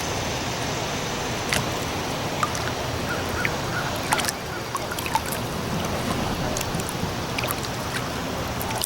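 Steady rushing riverside noise with a few sharp knocks and scattered short, high chirps.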